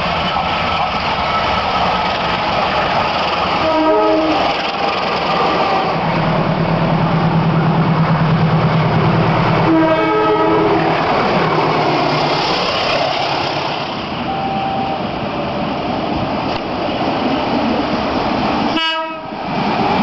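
Indonesian train horn sounding two short blasts, about six seconds apart, over the steady rumble and clatter of approaching trains on the track. This is the Semboyan 35 horn signal that train drivers give on approach.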